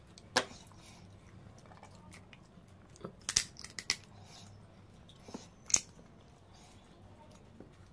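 Cooked crab shell cracking and crunching as curry-coated crab legs are broken apart and bitten: a sharp crack about half a second in, a quick run of several cracks a few seconds in, and two more a little later.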